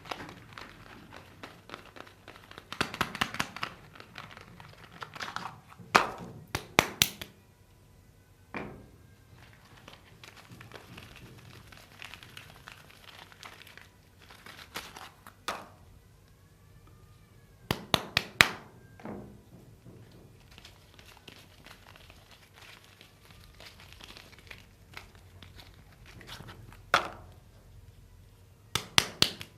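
Bar soap packaging being opened by hand: the wrapper and box crinkling and tearing, with sharp snaps and taps every few seconds, some in quick clusters.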